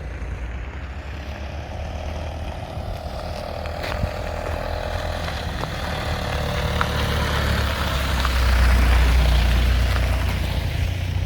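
A motor vehicle's engine running as a steady low drone that grows louder about eight seconds in, with a few faint clicks.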